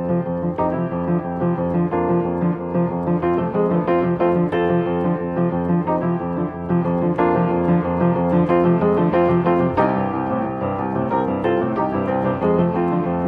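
Upright piano played live in a boogie-woogie style, with a steady repeating bass line under busy higher notes.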